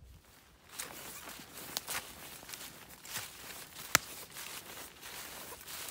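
Footsteps crunching through dry leaves and brush, irregular crackling steps, with one sharp, much louder snap about four seconds in.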